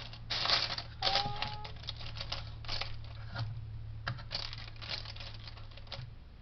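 Loose Lego pieces being handled and sorted by hand: an irregular run of plastic rustles, clicks and small clatters.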